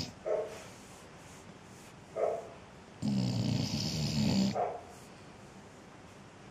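A sleeping pet snoring: short puffing breaths, then one long, loud, rumbling snore about halfway through, followed by another short puff. The owner puts the snoring down to the pet being hot.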